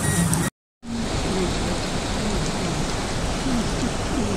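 Heavy rain and rushing floodwater: a steady, even hiss, broken by a moment of dead silence about half a second in.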